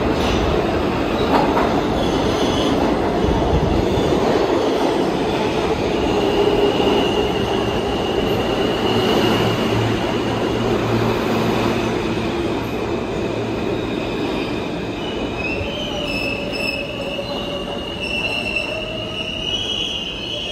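New York City subway train entering an underground station and rolling past along the platform: a steady rumble of wheels on the rails, with high-pitched wheel and brake squeal coming in about six seconds in and growing stronger over the last few seconds as the train slows.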